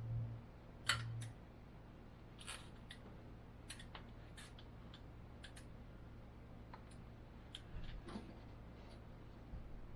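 Faint handling noise: scattered light clicks and taps, bunched around the first, fourth and eighth seconds, over a low steady hum.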